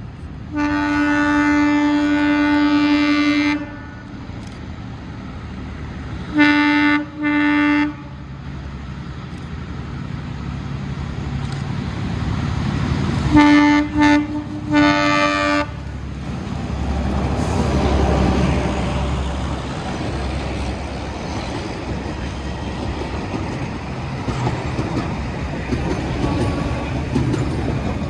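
Narrow-gauge diesel locomotive horn sounding one long blast, then two short blasts, then three quick blasts. After that the locomotive's diesel engine and the train running on the rails rumble steadily.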